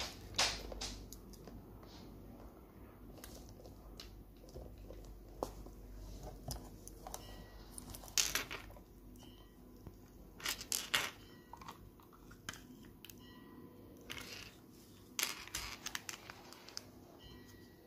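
Foil lid of a plastic yogurt pot being handled and peeled back: a series of short crinkles and scrapes with quiet gaps between them.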